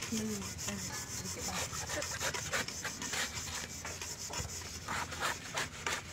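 Repeated rough scraping strokes of a blade working on a freshly opened green coconut, coming irregularly several times a second.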